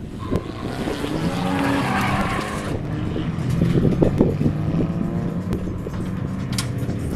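Drift cars' engines revving and falling back as the cars slide through a corner, with tyres squealing about one to three seconds in.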